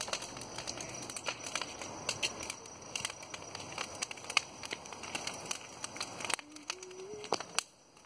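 Wood-and-branch bonfire crackling, with many irregular sharp pops and snaps; the background hiss drops away about six seconds in while the popping goes on.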